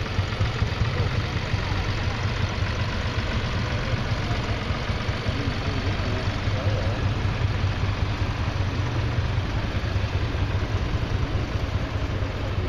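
Vintage farm tractor's engine running steadily as the tractor drives slowly past, with a strong, even low hum.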